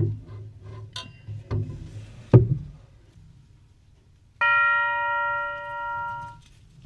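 A few sharp knocks and clunks, then a single Herschede grandfather clock chime tube struck once, ringing with a clear metallic tone for about two seconds before it stops.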